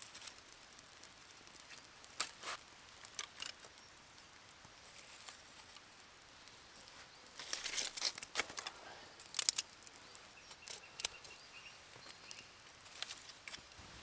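Dry sticks clicking and rustling as they are stacked into a teepee over smouldering tinder, with scattered single clicks and a busier patch of crackling and rustling about eight seconds in.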